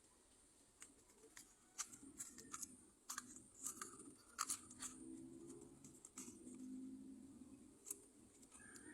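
Faint handling noise: scattered sharp clicks and crackles over a low background hum, several clustered from about two to five seconds in.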